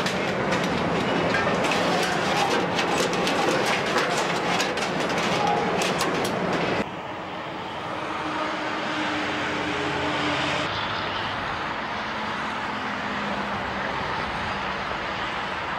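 Truck assembly-line din: a dense wash of machinery noise full of rapid clicks and clanks. About seven seconds in it cuts abruptly to a quieter, steadier outdoor rush of road traffic with a faint low hum.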